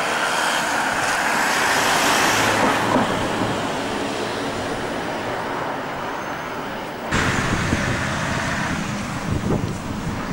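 Road traffic going by outdoors, heard as a steady roar of passing vehicles; the sound changes abruptly about seven seconds in.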